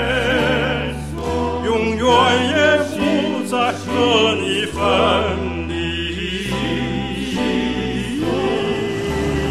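Background music: a sung piece, voices with wide vibrato over steady low accompanying notes that shift every second or two.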